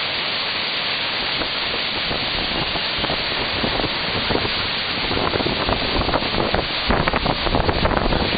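Hurricane wind gusting through trees with rain falling, the wind buffeting the microphone. The gusts grow slightly stronger about five seconds in.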